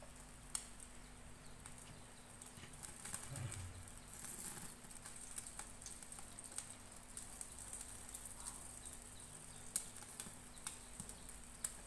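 Pork pieces sizzling faintly on a wire grill rack over a gas burner while a basting brush is dabbed over them, with scattered sharp crackles and ticks over a faint steady hiss and a low hum.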